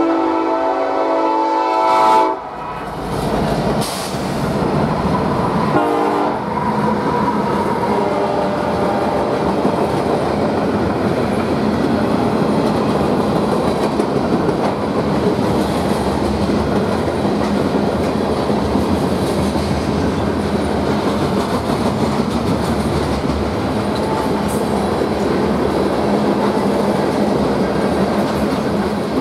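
Nathan K5LLA five-chime locomotive air horn sounding a loud chord that cuts off about two seconds in, with a brief second blast around six seconds. Then the eastbound manifest freight train rolls past close by, a steady rumble with the wheels clicking over the rail joints.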